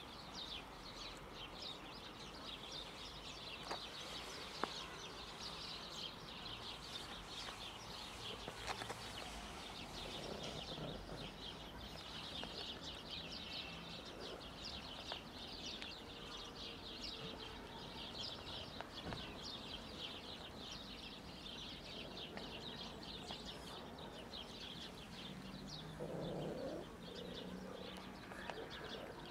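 Small birds chirping and chattering continuously in the background, with a brief lower sound near the end.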